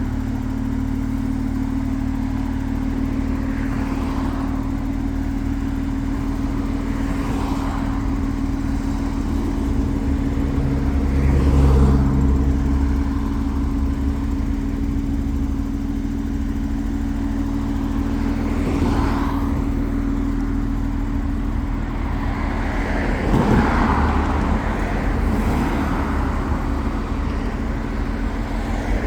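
Mercedes-AMG 43 engine running steadily, with several brief swells in sound, the loudest about twelve seconds in and another near twenty-four seconds.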